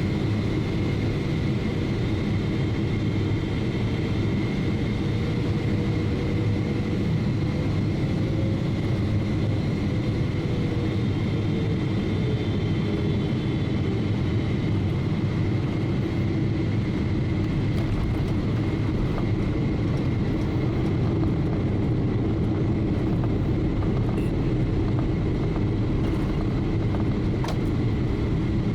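Boeing 777-300ER cabin noise during the descent to landing: a steady rush of air and engine noise with a thin, steady high whine. A lower tone wavers briefly about ten seconds in.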